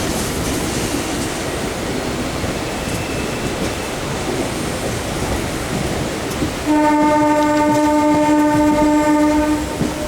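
MEMU electric multiple-unit train running over the track, heard from on board. A train horn sounds one steady blast of about three seconds near the end.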